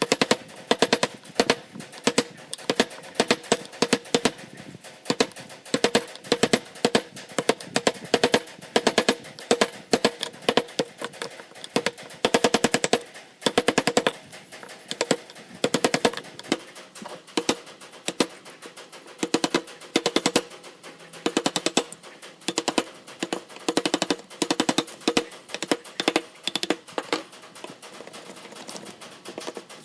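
Rapid, repeated sharp knocks, many a second, coming in uneven clusters, with a faint ringing tone beneath them.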